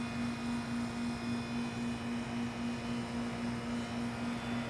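Outdoor unit of a 2008 Goodman 2-ton heat pump running with a steady electrical hum, its outdoor coil iced over even in mild weather.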